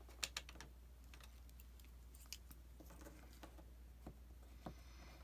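A few faint, sharp clicks and taps from handling cardstock pieces and a pencil on a tabletop, with a couple more near the end as the pencil goes to the paper.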